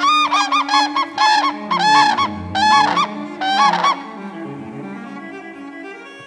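A pair of common cranes trumpeting a unison call: a run of loud, bugling notes in quick bursts for about four seconds, then stopping. Soft string music runs underneath throughout.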